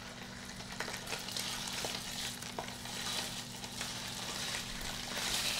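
Spare ribs searing in a hot stainless-steel pan of oil, a steady sizzle with scattered small crackles. A steady low hum runs underneath.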